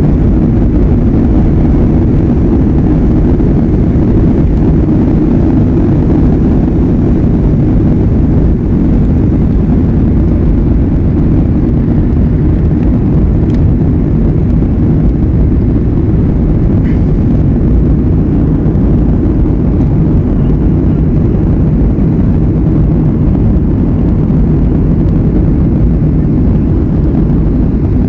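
Aircraft engines running steadily, heard from inside the cabin in flight: a loud, unbroken, low-pitched noise with a faint hum.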